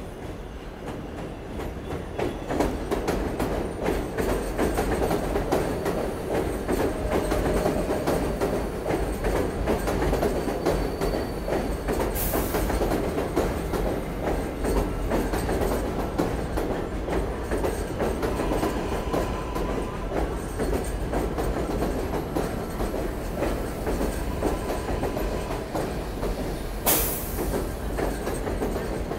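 R188 subway train pulling into an elevated station alongside the platform: steady rolling rumble with wheels clattering over the rail joints, getting louder about two seconds in, with faint wheel squeal. Two short sharp hisses come about twelve seconds in and again near the end.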